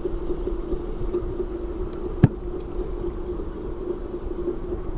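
Steady low machine hum with one sharp click a little after two seconds in.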